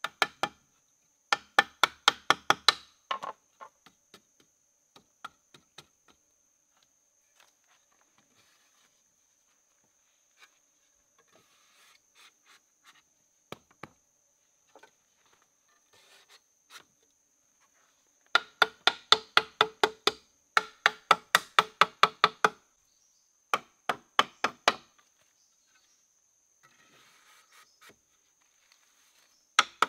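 Rapid, evenly spaced strikes of a tool on wood, about five a second, in bursts lasting a few seconds, each strike with a short ringing tone. A faint steady high-pitched tone runs underneath.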